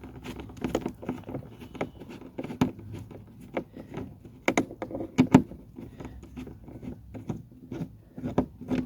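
Irregular small clicks, taps and scrapes of a hand tool working a T30 Torx screw loose from the car's door trim. The sharpest clicks come about halfway through and again near the end.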